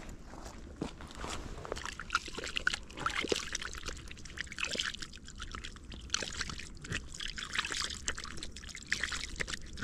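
Water trickling in wet, soggy mud: a steady, fine crackle of small wet ticks.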